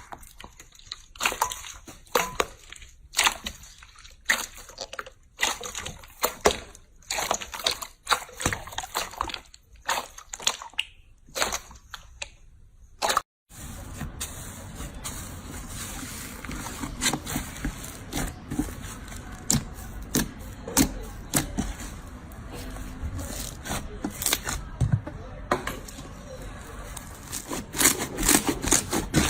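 Slime being squeezed and poked by hand, giving a run of sticky clicks and pops. After a short break about 13 seconds in, a denser crackling over a steady low background.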